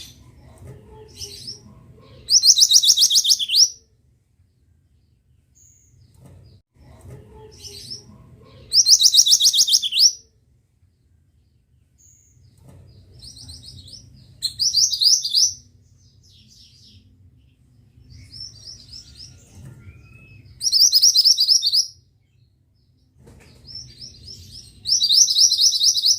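Mantenan songbird singing a loud, buzzy rattling trill that lasts about a second and a half. It repeats five times, about six seconds apart, with soft chirps in between. This is the monotonous song that bird keepers play as a tutor recording for other songbirds.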